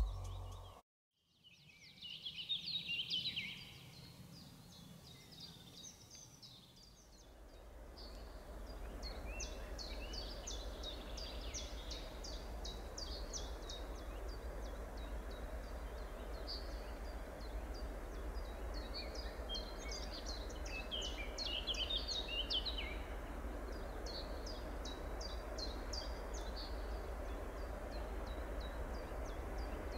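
Small birds chirping and singing in many quick short calls. About seven seconds in, a low steady rumble sets in beneath them and carries on.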